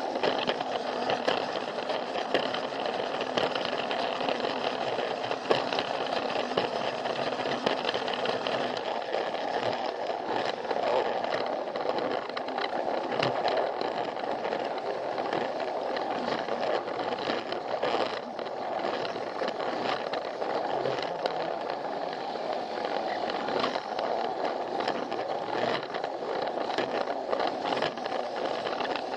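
Plarail toy train running along plastic track: the small battery motor whirs steadily while the plastic wheels rattle and click over the rail joints.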